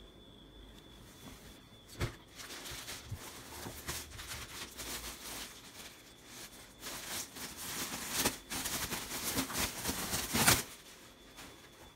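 Clear plastic poly bag crinkling and rustling as bagged jeans are handled, with a knock about two seconds in and the loudest crackle near the end before it stops.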